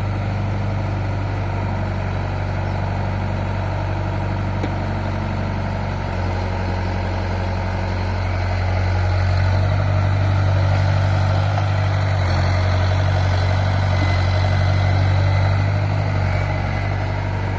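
Excavator's diesel engine running steadily with a low hum, growing louder about halfway through and easing back near the end.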